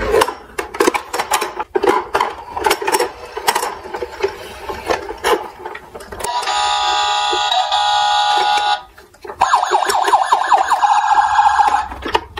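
Plastic toy vehicles clattering and knocking against each other in a cardboard box, then a Tonka Rescue Force toy rescue truck's electronic sound effects set off from the buttons on its hood: a steady electronic alarm tone for about two and a half seconds and, after a brief pause, a second wavering electronic siren sound.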